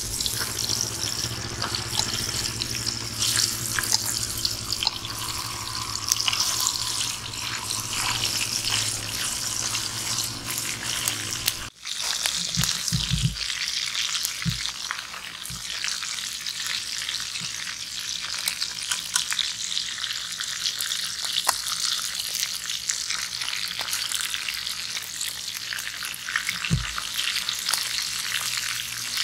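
Pieces of catfish frying in hot oil in a small aluminium wok over a wood fire, a steady sizzle and crackle. The sound cuts out briefly about twelve seconds in, with a few soft low thuds after it.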